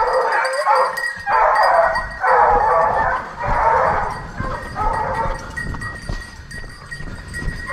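Hunting hounds baying on the trail of a wild boar, a run of long bays one after another that grow fainter after about five seconds.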